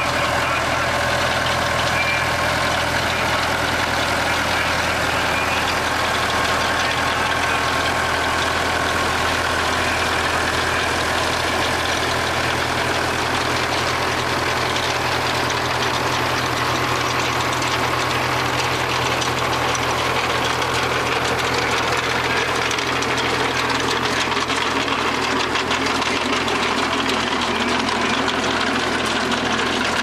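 Nuffield tractor engine running steadily as it pulls a potato lifter along a drill, lifting the crop.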